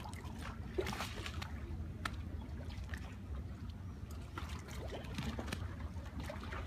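Marina ambience: a steady low rumble with scattered small clicks and splashes of water lapping against hulls and the pontoon.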